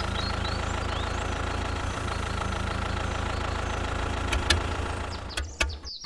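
A tractor engine idling steadily at a constant pitch, fading out a little after five seconds in. A few sharp clicks come near the end.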